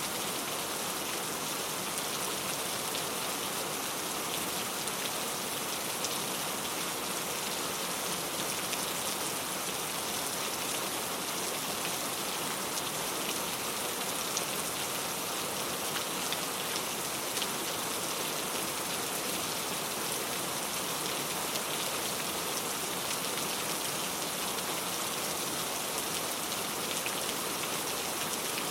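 Steady rain falling on a surface, an even hiss scattered with fine drop ticks.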